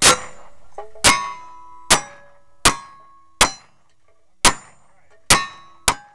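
A string of single-action revolver shots, eight in quick succession about a second or less apart. Most shots are followed by the brief ring of a steel target being hit.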